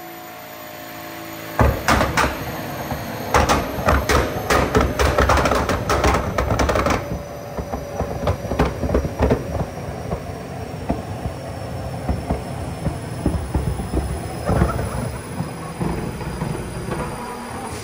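Nissan R35 GT-R's twin-turbo V6 revved on a dyno, its exhaust popping and banging as it spits flames. The rapid cracks set in about a second and a half in and are densest for the next five seconds, then carry on as a more irregular crackle.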